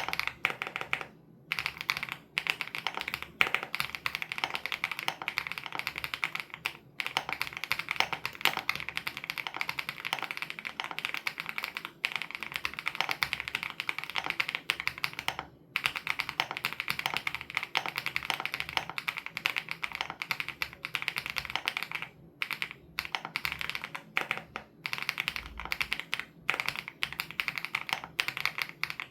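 Fast, steady typing on a WOB Crush 80 Reboot custom mechanical keyboard with Hyacinth switches: a rapid run of keystrokes with a few brief pauses.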